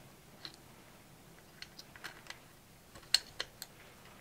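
Light clicks and taps of small metal parts being fitted by hand into the open frame of a G10 air pistol's trigger mechanism, about seven in all, the sharpest about three seconds in.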